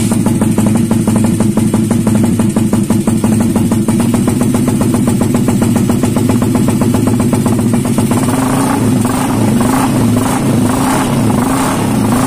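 Ported, carburetted Suzuki Satria F150's single-cylinder four-stroke engine running through a roadrace exhaust, very loud with a fast, choppy pulse. From about eight seconds in, the throttle is blipped repeatedly in short revs.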